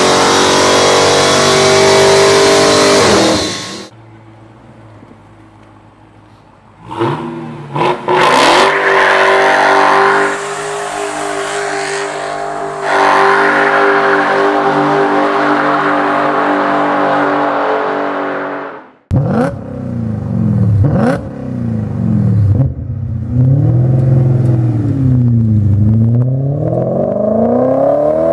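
Supercharged 6.2-litre V8 of a Dodge Challenger SRT Hellcat held at high revs, cutting off about four seconds in. From about seven seconds a Hellcat V8 is held at high revs through a tyre-smoking burnout, stopping abruptly about nineteen seconds in. Then a BMW E39 M5's 4.9-litre S62 V8 revs up and down repeatedly.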